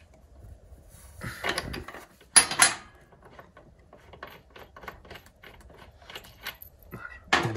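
Metal hand tools clicking and clinking as a spark plug is worked loose from a small two-stroke scooter cylinder, with a louder clatter about two and a half seconds in.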